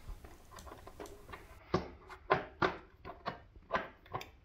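Irregular knocks and clicks of a motor controller being pushed and slid into its plastic mounting adapter, a quick run of them from a little before halfway to near the end.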